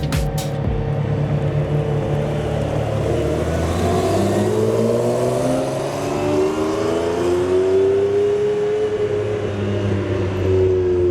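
A sports car's engine revving as it accelerates away, its pitch climbing steadily for several seconds and then easing off near the end.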